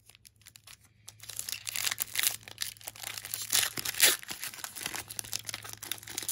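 Foil baseball card pack wrapper being torn open and crinkled by hand: a quiet start, then a dense run of sharp crackles from about a second in, loudest around four seconds in.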